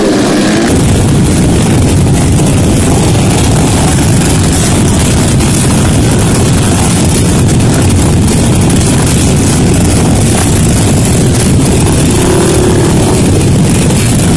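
A single dirt bike engine revs briefly at the start. It then gives way to the loud, steady din of many trail motorcycle engines running together.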